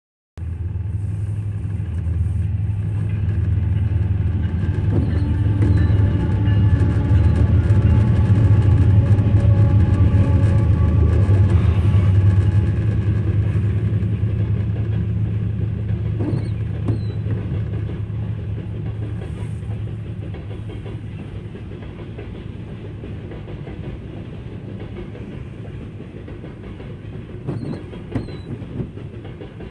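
A coal train rolling past: the steady rumble and clatter of hopper-car wheels on the rails. Over it a diesel locomotive drone is strongest in the first dozen seconds, then slowly fades.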